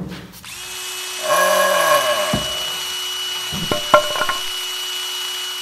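Power drill whirring, played as a logo sound effect, with a cluster of sharp clicks about four seconds in.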